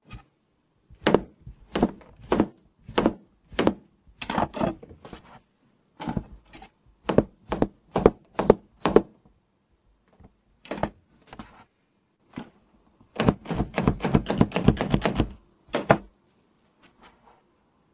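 Chef's knife chopping a cucumber directly on an iPad screen covered with a Buff shock-absorbing protector: sharp knocks of the blade on the screen, mostly one every half second or so, with a fast run of rapid chopping near the end.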